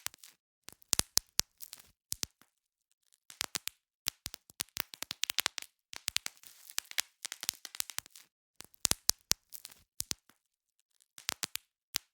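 Plastic bubble wrap being popped: sharp pops in quick clusters of several at a time, separated by brief pauses.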